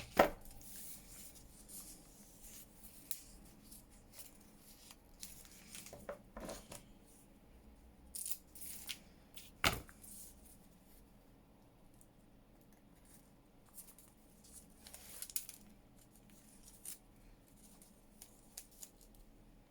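Paper crafting at a table: paper and tape being handled and cut in scattered short rustles and snips. A few sharp taps stand out, the loudest just at the start and another about ten seconds in.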